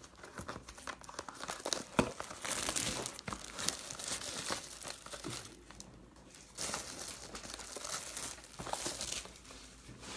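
Wrappers of 2018 Panini Prizm football card packs being torn open and crinkled by hand, in irregular bursts of crackling with a sharp click about two seconds in.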